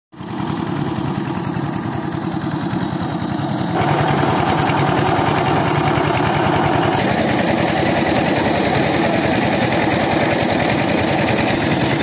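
Engine running loudly and steadily, getting louder about four seconds in.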